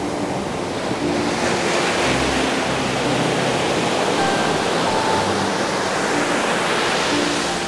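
Ocean surf breaking and washing up a sandy beach, a broad rush that swells about a second in and stays strong. Faint background music plays under it.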